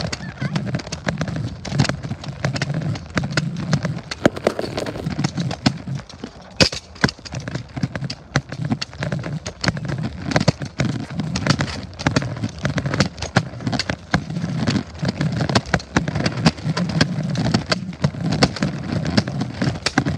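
Continuous low rumble with rapid, irregular clattering and knocking from moving fast along a sidewalk, with handling bumps on the phone's microphone.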